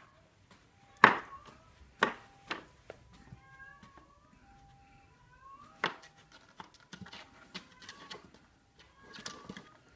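Two small kittens playing on a wooden floor: a few sharp knocks and scuffs, the loudest about a second in, with faint short high mews in between.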